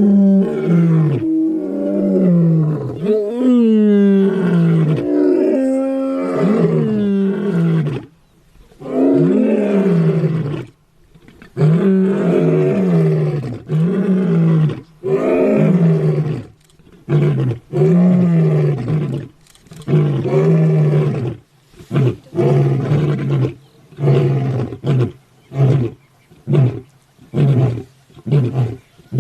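Lion roaring: a bout of long, deep roars, followed by a run of short grunting roars about once a second that grow shorter and quicker toward the end.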